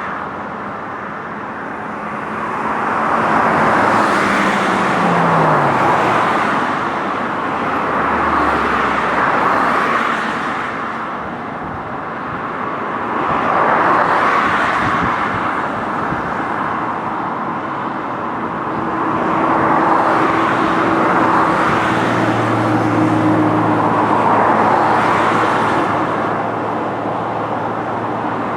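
Road traffic on a bridge: cars passing one after another, their tyre noise swelling and fading every few seconds. A steady low engine hum comes in near the end.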